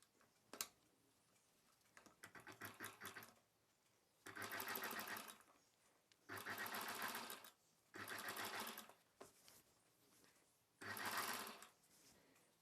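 Sewing machine stitching in short runs: a faint run, then four runs of about a second each with pauses between, as a seam is sewn along the neck edge of a blouse lining. A single click about half a second in.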